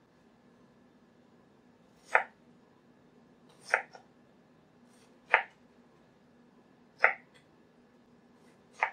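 Ceramic chef's knife chopping down through an onion onto a cutting board, five separate knife strikes spaced a little under two seconds apart, while dicing the onion.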